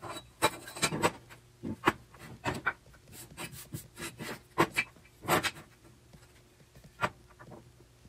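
Wooden boards and 2x4 pieces being picked up, slid and set down on a steel workbench: a string of irregular wooden knocks and scrapes, most of them in the first five seconds, with one last knock near the end.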